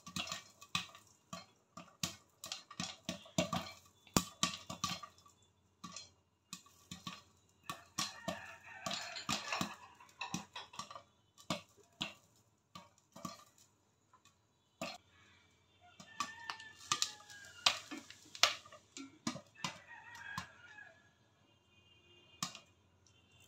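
Popcorn kernels popping in a pan under a glass lid: sharp, irregular pops, coming thick and fast at first, then a brief lull, then sparser pops. A few faint, higher, rising-and-falling calls sound in the background in the second half.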